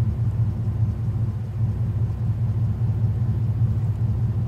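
Dodge Ram pickup's engine idling, heard from inside the cab as a steady low rumble.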